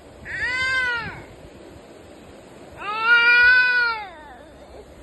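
A cat meowing twice, two long wailing meows of about a second each that rise and fall in pitch.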